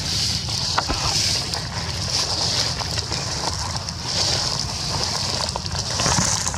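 Outdoor ambience: a steady high-pitched hiss that swells and fades several times, over a low rumble of wind on the microphone, with a few faint ticks.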